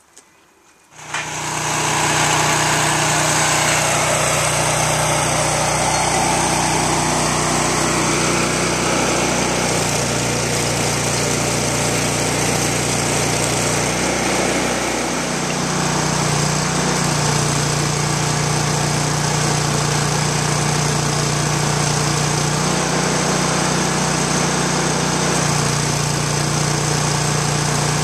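An electric angle grinder runs continuously on steel tubing, starting about a second in. Its steady hum shifts slightly in pitch around the middle and again later, as it bites under load.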